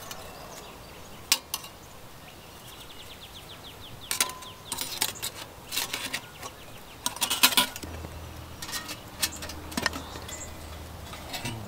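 Folding metal twig stove being unfolded and assembled by hand: scattered light metallic clicks and clinks as its hinged panels are opened and fitted together.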